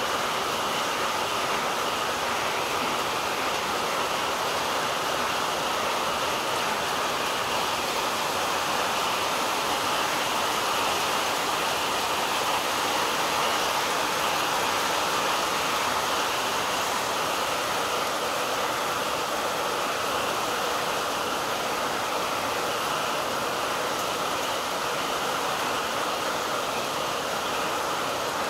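Heavy rain falling steadily on trees, grass and the surface of a pond, an even hiss with no let-up.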